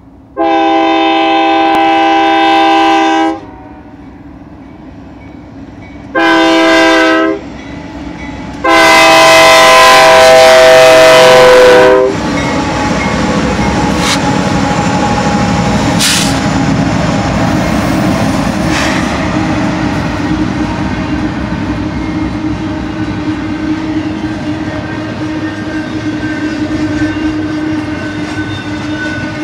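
BNSF GE diesel locomotive air horn sounding three blasts, long, short, long, as the crossing warning at a grade crossing. Then the locomotives and double-stack intermodal cars roll past in a steady rumble of engines and wheels on rail, with a couple of sharp wheel clicks.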